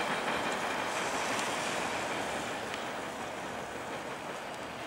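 TTC T-1 subway train rolling away on steel rails, a steady rushing wheel-on-rail noise that slowly fades as it recedes.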